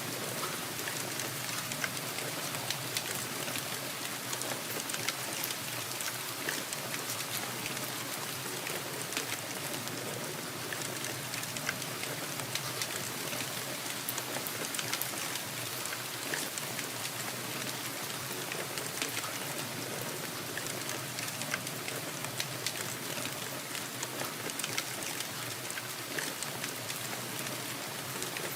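Steady rain falling: a dense, even hiss, mostly high-pitched, flecked with the sharp ticks of individual drops, holding the same level throughout.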